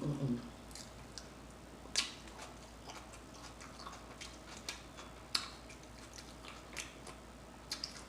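Close-miked chewing, with faint wet mouth clicks and lip smacks coming about once a second and a few sharper ones standing out.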